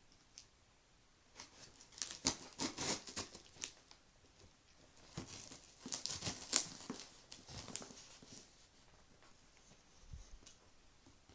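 Packaging on a cardboard shipping box being cut and torn open with a blade, with tearing and crinkling in two spells of scratchy bursts, about a second in and again midway.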